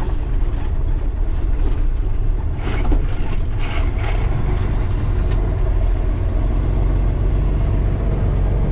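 Heavy truck's Mercedes diesel engine running steadily, heard from inside the cab, with a few rattles and knocks about three seconds in as the rig rolls along.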